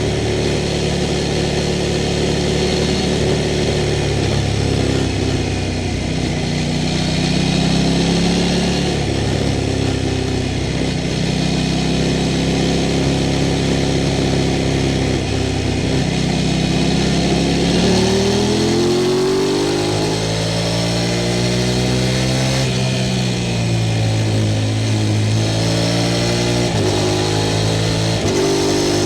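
Sport motorcycle engine running under way. Its pitch holds for stretches and shifts in steps, then sweeps up and back down about two-thirds of the way through as the throttle is opened and closed.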